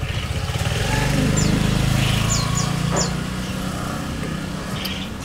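A small petrol engine running, swelling to its loudest about one to three seconds in and then fading away, like a motorbike passing by. A few short high chirps sound over it near the middle.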